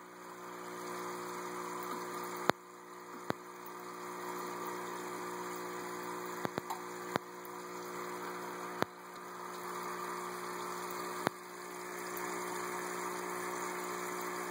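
Steady electric hum of a small aquarium water pump, with a low drone and a light watery hiss under it. Several sharp clicks stand out over the hum, the loudest about two and a half seconds in.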